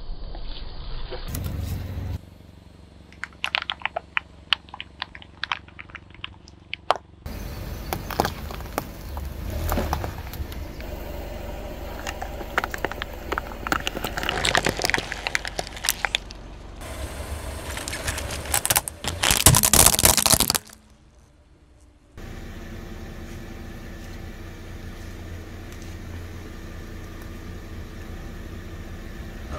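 A run of short clips of a car tyre rolling over and crushing objects: sharp cracks and dense crackling and crunching, with a loud burst of noise about twenty seconds in. A car engine then runs steadily for the last several seconds.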